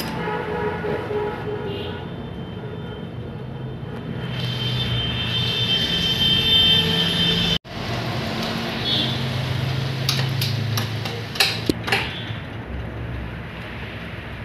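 A motor vehicle engine running steadily in the background, with a few sharp metallic clinks in the second half as a steel rod is worked in the motorcycle's open cam sprocket housing.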